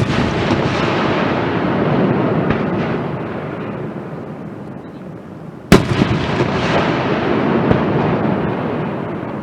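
Aerial fireworks shells bursting: a sharp bang about halfway through, each burst followed by several seconds of dense rumble and crackle that slowly fades.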